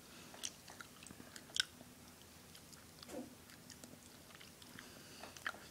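Faint, scattered taps of fingers on an iPad touchscreen during typing, with one brief murmured vocal sound about three seconds in.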